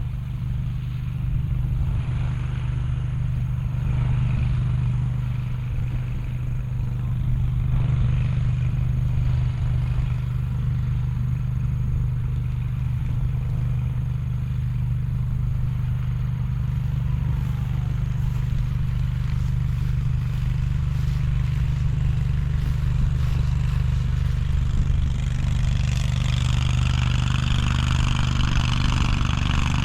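A vehicle engine running with a steady low hum; a hiss joins in near the end.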